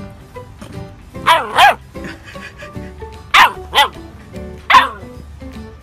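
A dog barking: five short, loud barks, mostly in quick twos, over background music.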